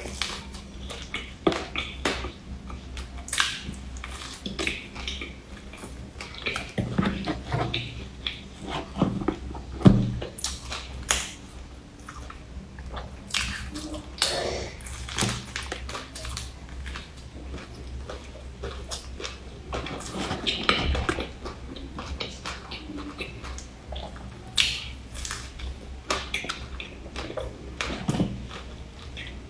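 Biting and chewing of soft pork-floss sponge cakes with a creamy filling: many short, irregular clicky mouth sounds, over a steady low hum.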